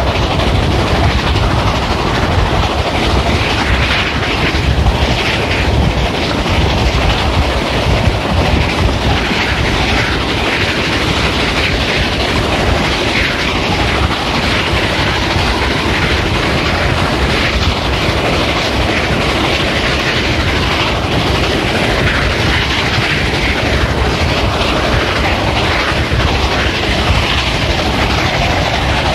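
Steam-hauled train behind Reading 4-8-4 No. 2102 running steadily: a loud, even rumble of wheels on the rails with no break.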